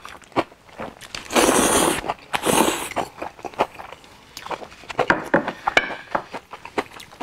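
A person eating noodles: two long slurps a little after a second in, with chewing and short clicks around them.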